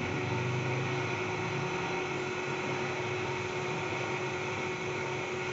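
Steady background hum and hiss with one constant tone running through it, the kind of noise a fan or running appliance makes.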